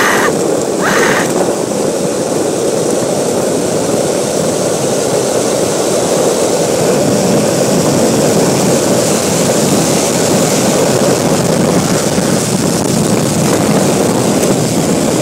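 Steady, loud rush of wind over the microphone mixed with longboard wheels rolling on asphalt at high speed down a hill.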